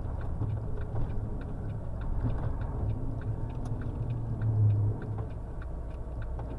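Lorry engine running with a steady low rumble inside the cab, while the turn-signal indicator clicks evenly a few times a second, signalling a left turn.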